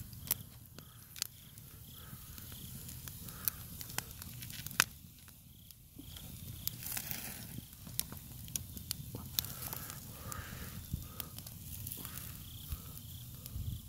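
Open fire of flames and embers crackling under skewers of shashlik, with sharp pops scattered throughout and a brief hiss about seven seconds in.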